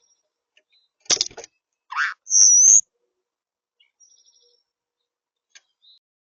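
A bird calling: a short rising note, then a loud high whistled chirp, with a quick cluster of sharp taps just before and a few faint high chirps later.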